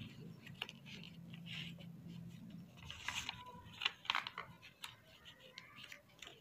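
A sheet of craft paper rustling and crinkling faintly as it is folded and creased by hand, in short scattered rustles that come more often after about three seconds.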